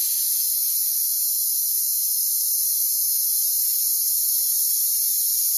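Steady hiss of compressed air blowing through a Bestarc BTC500DP plasma cutter's torch in air-test mode, with no arc struck.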